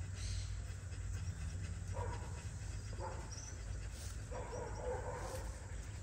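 An animal whining in three short calls, the last and longest lasting about a second, over a steady low hum.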